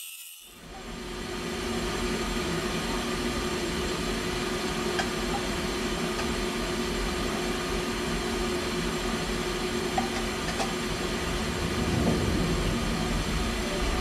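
Steady machine-shop drone from running CNC machinery, an even rumbling noise with a steady hum through it and a few faint clicks.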